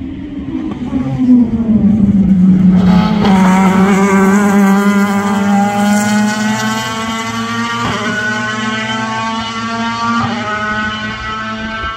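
Classic touring race cars at full throttle, passing close with a drop in pitch, then pulling away down the straight, the engine note climbing steadily. Two sharp breaks in the note, about eight and ten seconds in, mark upshifts.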